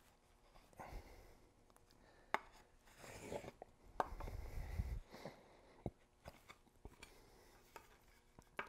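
Marking gauge cutter scraping along the edge of a wooden board, scoring a layout line in faint scratchy strokes, with a few light clicks.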